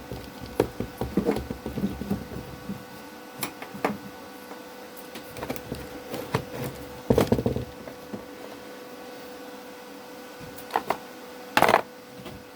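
Window air-conditioner compressor running as a homemade vacuum pump, a steady hum, with scattered clicks and knocks from handling. The loudest knocks come about seven seconds in and again near the end.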